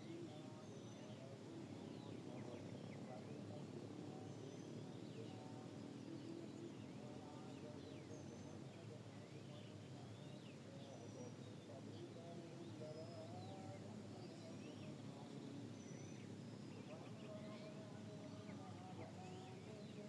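Faint morning ambience in the mountains: many short, scattered bird chirps and calls over a steady low rush of wind.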